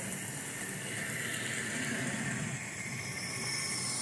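OO gauge model train running along the track: the small electric motor whirs steadily and the wheels roll on the rails.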